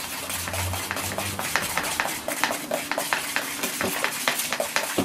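The thin end of a paintbrush stirring a gritty terrain texture mix of sand or sawdust with paint and glue in a pot, a rapid, irregular run of small scraping clicks. A low hum sounds under it for about the first second and a half.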